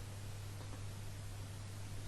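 Steady low hum with an even hiss, unchanging throughout: background recording noise, with no distinct snore breath standing out.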